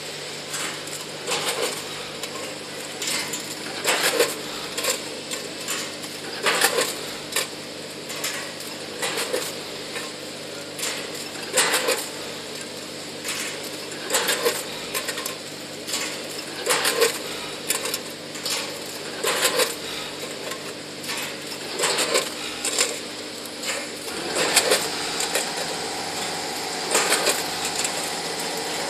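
Multihead combination weigher running: small plastic parts clattering through its weigh buckets and the hopper gates clacking, in irregular bursts about one or two a second, over a steady machine hum. Near the end a steadier running noise joins in.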